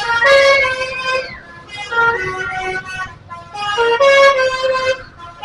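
A bus's "telolet" horn, a multi-note musical horn, playing short stepped melodies of quick notes. The phrases repeat about every two seconds.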